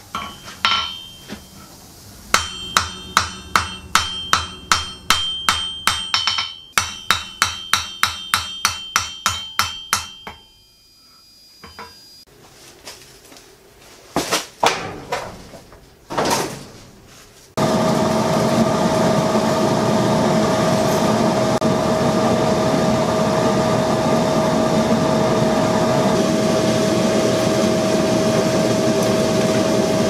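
Rapid hammer blows on hot steel over an anvil horn, about three a second, with the anvil ringing after each strike; they stop about ten seconds in, and a few scattered knocks follow. Then a forge blower starts up suddenly, a constant rushing hum with a steady tone, blowing air into the coal fire.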